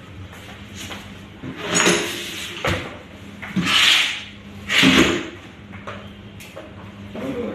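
Short bursts of pesticide spray from a hand-pump sprayer, hissing and clattering four times over a steady low hum.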